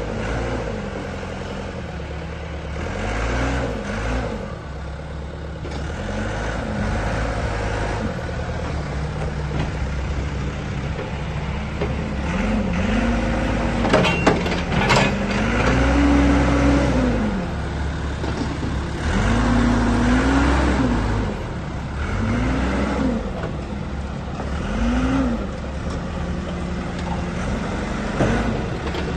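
Komatsu 266D backhoe loader's diesel engine running and revving up and down again and again, as if under changing load. There are a few sharp knocks about halfway through.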